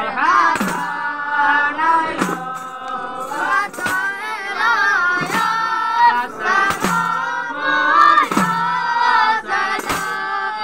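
A group of boys singing a chant together in unison, with tambourines and frame drums struck together about every one and a half seconds.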